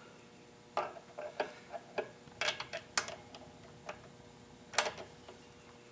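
Hand tools clicking and clinking on metal as an open-end wrench and a torque wrench are fitted onto the rocker pivot and jam nut of a small engine's valve gear. The clicks come irregularly, with a sharper one near the end.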